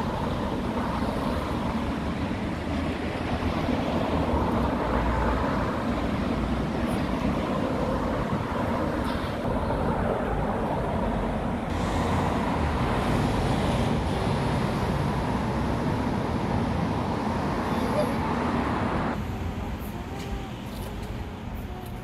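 Steady rushing noise of road traffic, which drops off about three seconds before the end.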